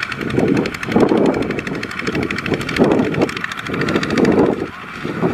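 Single-cylinder diesel engine of a two-wheel walking tractor running with a rapid, steady chug while pulling a trailer loaded with rice sacks.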